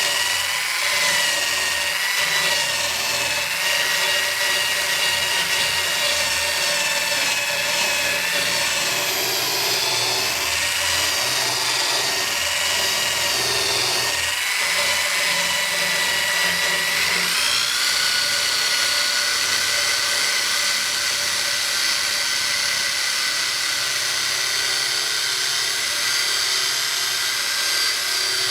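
Blender motor driving a homemade drum sander, running with a steady high whine that wavers in pitch, then steps up and holds steadier about two-thirds of the way through.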